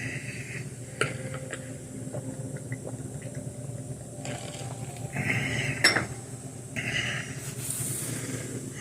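Ice cubes clinking in a mug, with short bursts of liquid being poured and a sharp clink just before six seconds in.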